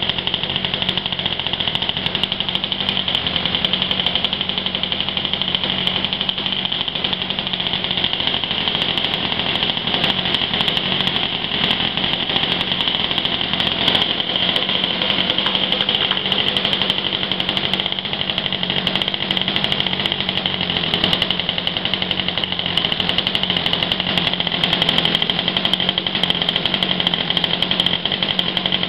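ASP .28 two-stroke glow (nitro) model-aircraft engine running at a steady speed during its break-in run, with a constant high buzz.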